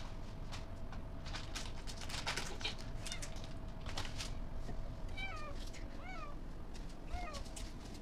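Plastic bag crinkling and rustling as a cat noses into it, then a domestic cat meows three short times about a second apart, each call rising then falling in pitch.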